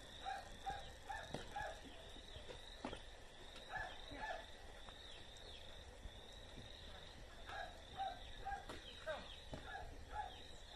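Faint birdsong: short high chirps repeating about twice a second, with lower paired notes in between and a few soft knocks.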